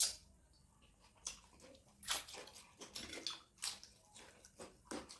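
Wet eating sounds of mutton curry and rice: a string of short, irregular smacks and chews.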